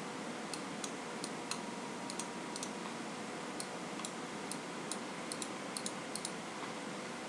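Light, irregular clicking of computer controls while someone works at a computer, about twenty clicks, some in quick pairs, over a steady faint hiss.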